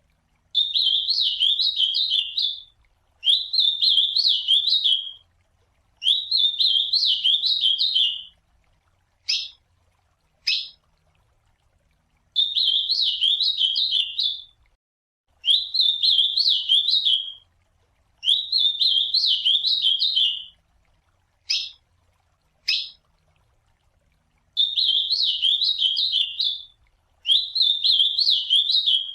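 Ultramarine grosbeak (azulão) singing: warbled song phrases of about two seconds each, delivered in runs of two or three with short pauses, with two single sharp call notes between each run.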